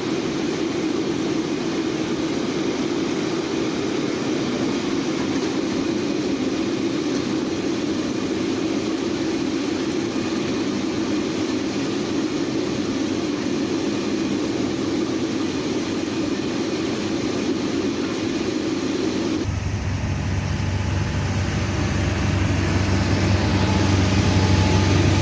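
New Holland T7.210 tractor engine running steadily. About 19 seconds in the sound changes abruptly to a deeper engine hum that slowly gets louder toward the end.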